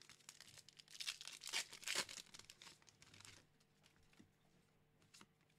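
Foil wrapper of a Pokémon Battle Styles booster pack being torn open and crinkled, a run of crackly rips starting about a second in and dying away after about three seconds. One light click near the end.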